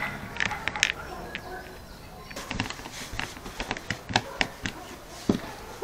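Scattered, irregular clicks and knocks of hand tools and small metal and plastic parts being handled while fasteners are screwed back in.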